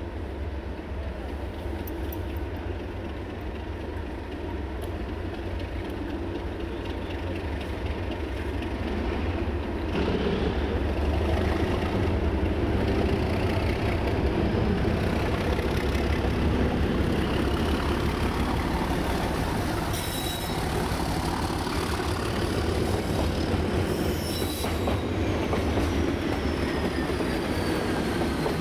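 Yellow Class 37 diesel locomotive passing slowly, its engine running and getting louder from about ten seconds in as it draws level. Over the second half its wheels squeal on the rails in high notes gliding down in pitch, with clicks of wheels over rail joints.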